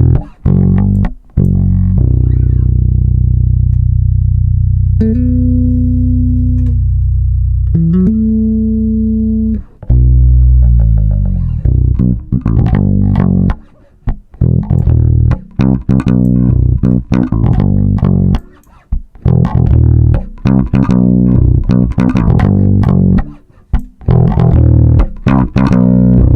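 Electric bass recorded direct (DI), playing long held notes and then a run of plucked notes, through the Opticom XLA-3 optical compressor plugin. Its response setting is being stepped through; at the fast setting the bass turns gritty and aggressive.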